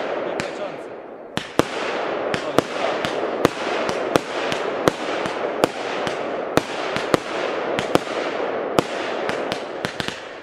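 A consumer fireworks battery (cake) firing: sharp bangs of shots bursting at an irregular pace, about two a second, over a continuous hissing crackle.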